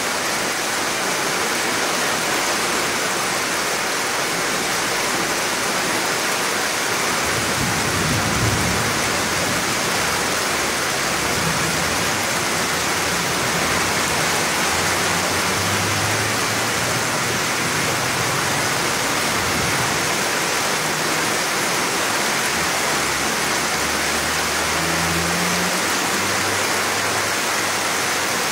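Steady rush of a flooded, fast-flowing muddy river in the rain, with a few low rumbles now and then.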